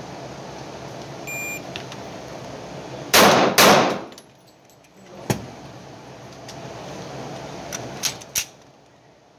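Two .45 ACP shots from an HK45C pistol about half a second apart, echoing in an indoor range. This is followed by reload noise: a sharp knock about two seconds later, then two quick clicks near the end as a fresh magazine goes in.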